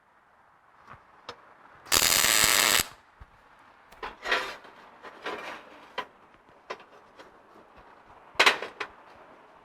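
A tack weld: about two seconds in, a welder crackles and buzzes steadily for just under a second, joining the bumper pieces. Scattered clanks and clicks of metal parts being handled follow, the loudest near the end.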